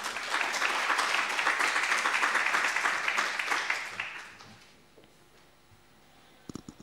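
Audience applauding, a dense patter of many hands clapping that dies away about four seconds in. A couple of short soft knocks follow near the end.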